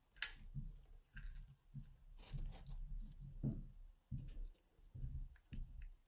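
Faint handling of small lock parts: a sharp click about a fifth of a second in, then scattered light clicks and taps as a tiny pin goes into a pinning tray and the brass euro cylinder is picked up, with soft low bumps from the hands.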